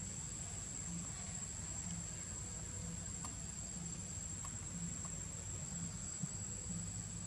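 Insects keeping up one steady, high-pitched drone over a low background rumble.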